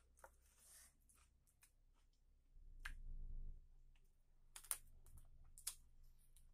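Faint close-up eating sounds from a person biting and chewing a curried chicken leg: wet mouth clicks and smacks, with a few sharper clicks near the end and a brief low rumble partway through.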